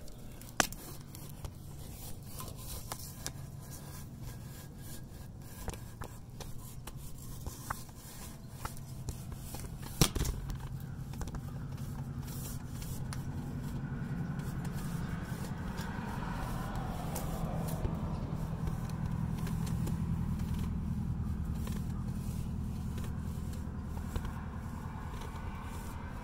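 Camera on a line scraping and knocking against the inside of a chimney flue liner as it is lowered. There are scattered small clicks and one sharp knock about ten seconds in. In the second half a low steady rumble builds up and then eases.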